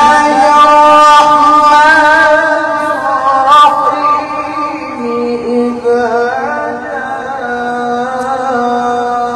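A man's solo melodic Qur'an recitation (tilawah), drawn out in long held notes with a wavering ornament; the held pitch steps down a little about five seconds in.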